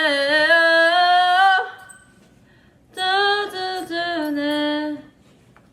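A woman singing unaccompanied in two phrases of long held notes, with a short pause between them.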